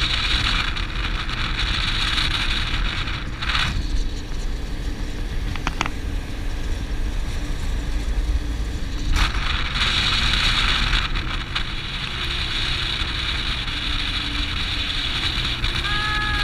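Bass boat's outboard motor running steadily at speed, about 26 mph, with wind rushing over the microphone and water noise from the hull. The wind noise swells and fades.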